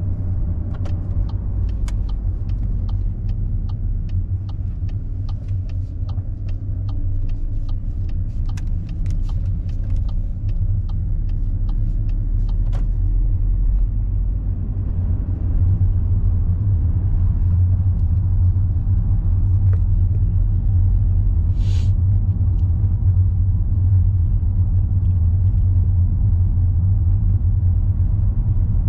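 Car interior: steady low engine and road rumble of a car on the move, a little louder from about halfway as it picks up speed. Through the first half there is faint regular ticking, the turn indicator signalling for the right turn at the roundabout, which stops a little under halfway.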